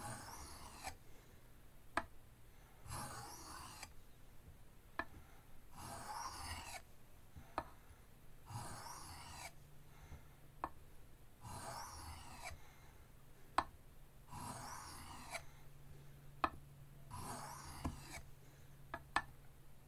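Knife blade being stroked across a soft Arkansas oilstone under light pressure: a faint rasp about once every three seconds, seven strokes, each with a sharp click from the blade touching the stone between strokes.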